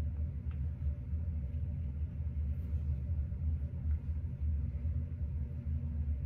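Steady low rumble with a faint hum, unchanging throughout, with no distinct events.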